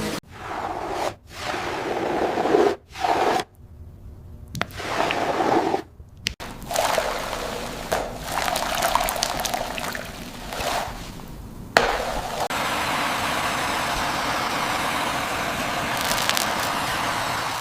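A series of short scraping and squishing sounds, each cut off abruptly, followed by about five seconds of steady, even hissing noise.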